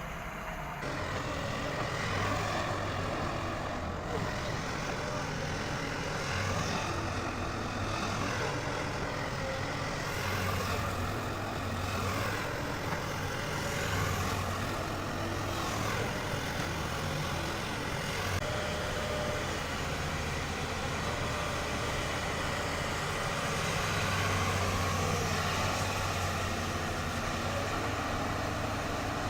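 Volvo EC220 excavator's diesel engine running under load, its low drone swelling and easing every few seconds as the machine works.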